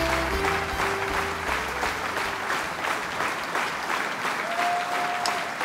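Audience clapping and cheering after a song, with the band's last low notes dying away in the first couple of seconds.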